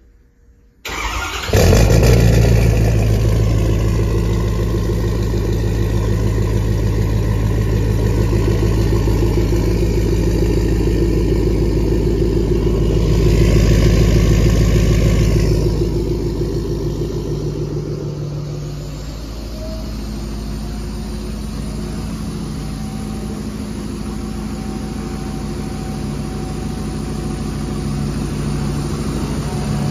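Ford 6.7 L Power Stroke V8 turbodiesel cold-starting after sitting overnight without the block heater plugged in: a short crank about a second in, then it catches and runs at a steady idle. The sound is loudest for a few seconds in the middle, then settles quieter and steadier after about 18 seconds.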